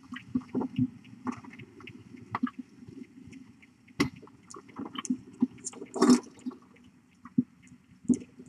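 A mother cat licking and grooming: irregular soft wet smacks and clicks, with a sharp tick about four seconds in and a louder short burst of noise about six seconds in.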